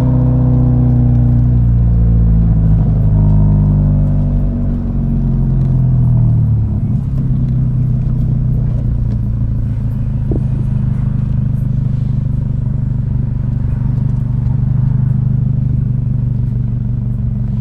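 Subaru BRZ's flat-four boxer engine, its pitch falling steadily over the first seven seconds as the car slows without a downshift, then holding at a steady low drone.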